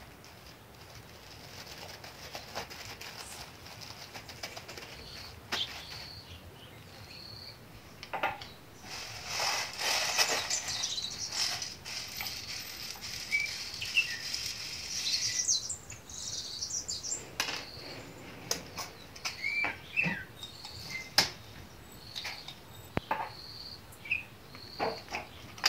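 Pepper seeds poured from a metal pan into a glass jar, a rattling hiss lasting several seconds in the middle, followed by light clicks and knocks as the jar, its lid and a small wooden mill are handled. A bird chirps briefly and repeatedly in the background, about once a second.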